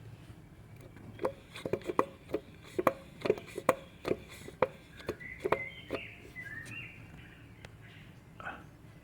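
A run of about a dozen sharp, irregular metallic clicks over some five seconds, from engine parts being handled. A bird chirps a few times in the background partway through.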